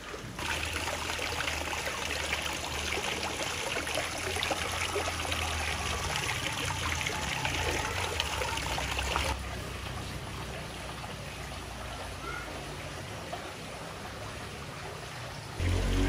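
Water trickling and splashing from a homemade PVC-pipe waterfall aerator, thin streams falling from the slot along the pipe into a fish pond. About nine seconds in it drops to a softer splashing, and a louder, different sound cuts in just at the end.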